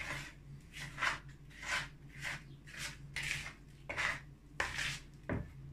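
A plastic card scraping around a plastic mixing bowl, working flour and water into bread dough, in repeated short strokes about two a second.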